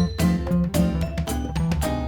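Background music: an upbeat instrumental piece with a steady beat and bright tinkling notes.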